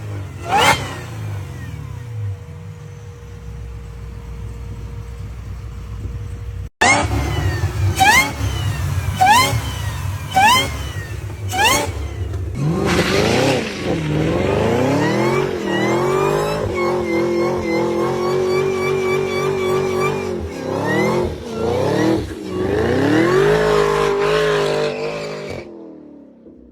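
Supercharged car engines in three clips, one after another. First a single rev that settles to a steady run. Then about five quick revs, each with a whine that rises and falls. Then a longer run with a steady high supercharger whine over the engine, fading out near the end.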